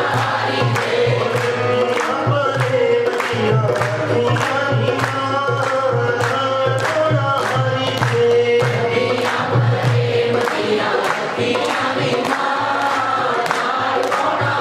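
Punjabi devotional kirtan: a man leads the singing over a harmonium, with the congregation singing along and clapping in a steady beat about twice a second.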